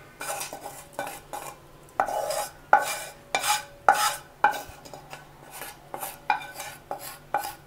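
Utensil scraping and clinking against the inside of a frying pan as the cooled oil tempering is scraped out into the pickle: repeated short metallic scrapes and taps, roughly two a second, some with a brief ring.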